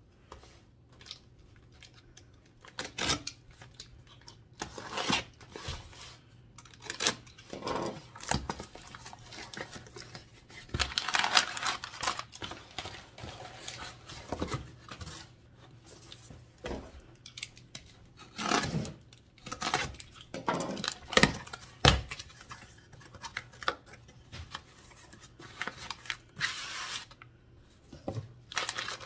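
A cardboard shipping box being opened by hand: a box cutter slitting the tape, the flaps folded back, and a brown-paper-wrapped package lifted out. Irregular scraping, cutting and knocking, with stretches of crinkling paper.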